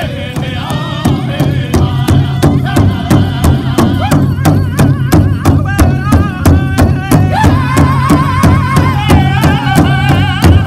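Powwow drum group performing a chicken dance song: several men singing in high, wavering voices over one large shared powwow drum struck together with drumsticks in a fast, even beat. The drumbeat gets louder about a second in.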